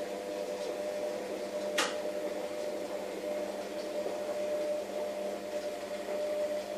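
Steady mechanical hum with a faint held tone, and one sharp click about two seconds in.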